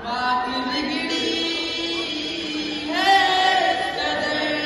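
A man singing a slow phrase of long held notes into a handheld microphone, with a new phrase starting about three seconds in.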